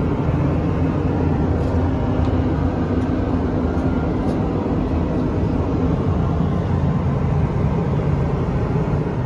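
Steady in-flight cabin noise of an Airbus A330-300 heard inside its lavatory: a constant low drone of engine and airflow with a steady hum, and a few faint clicks in the first half.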